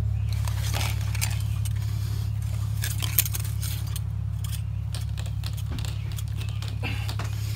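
Scattered light metallic clinks and jingling as a stainless submersible well pump and its fittings are handled, with one sharper clink about three seconds in, over a steady low hum.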